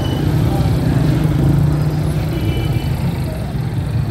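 Busy street traffic noise: a steady, dense mix of vehicle engines running close by.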